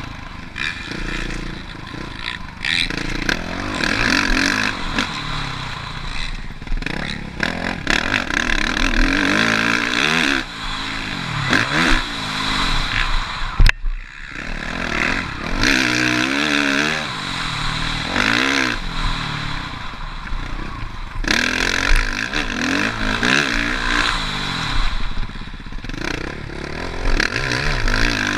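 Suzuki RM-Z450 four-stroke single-cylinder motocross bike being ridden hard, its engine revving up and dropping back again and again with gear changes and throttle chops. There is one sharp click about halfway through.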